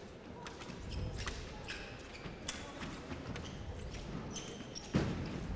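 Foil fencers' footwork on the piste: shoes tapping and shuffling with scattered light clicks, and one sharp heavy stamp about five seconds in.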